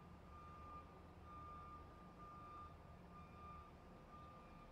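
Truck reversing alarm beeping steadily, about one beep a second, over a low engine rumble.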